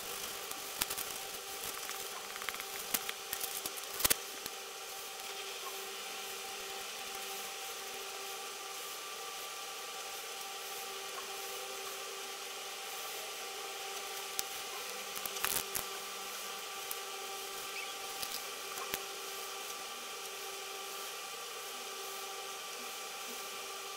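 Steady faint hiss and hum, with scattered sharp clicks and taps from pen, marker and paper being handled, the loudest about four seconds in and a cluster a little after the middle.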